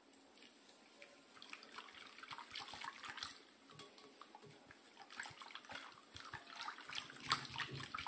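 Wire whisk beating a thin milk-and-egg custard mixture in a glass bowl: faint, quick sloshing with light irregular scratches and ticks of the wires. It starts about a second in and gets busier.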